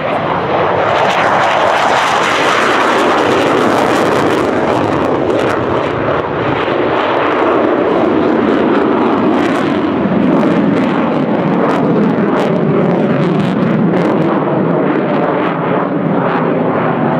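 Twin Klimov RD-33 turbofans of a Mikoyan MiG-29 fighter in a low pass and steep climb: loud, steady jet noise whose pitch sinks over the first ten seconds, with a rapid crackle running through the later part.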